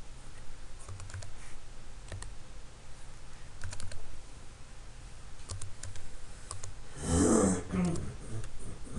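Computer keyboard keys tapped in short scattered runs while numbers are typed. Near the end comes a brief voice sound, the loudest thing heard.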